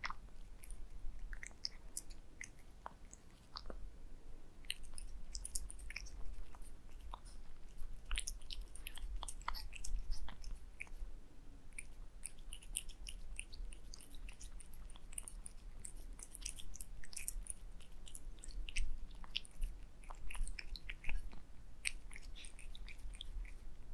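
A cat eating wet food from a saucer: close, wet chewing and licking clicks and smacks, irregular and coming in flurries.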